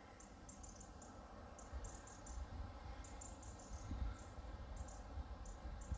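Quiet outdoor ambience: short, faint, high-pitched chirps at uneven intervals over a low, gusting rumble of wind on the microphone, strongest about four seconds in and again near the end.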